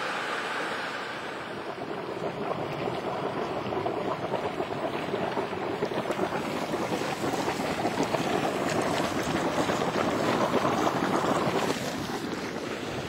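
Volcanic boiling spring churning and splashing, with steam rushing out of the vent. It grows louder over the first few seconds and drops off suddenly near the end.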